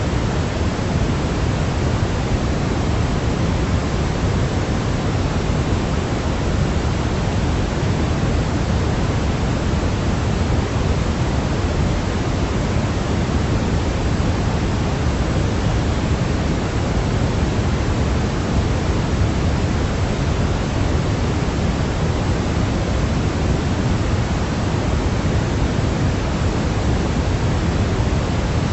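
Steady sleep white noise: an even, unchanging hiss, heavier in the low end than in the highs.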